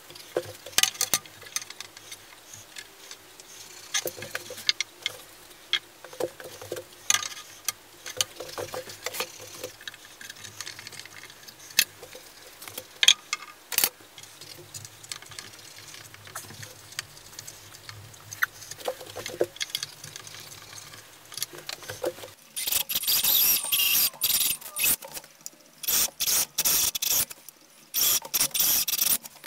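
Scattered knocks and clicks of walnut table parts and a framing square being shifted and set on a slab. About two-thirds of the way in, a power drill runs a bit into walnut in several short bursts, marking and boring the mounting holes.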